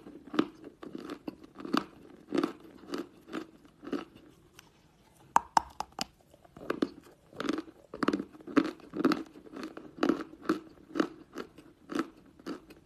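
A person chewing a chunk of white Turkestan chalk close to the microphone: dry crunches about two a second. After a short pause, a few sharper cracks come just after five seconds in, as a fresh piece breaks between the teeth.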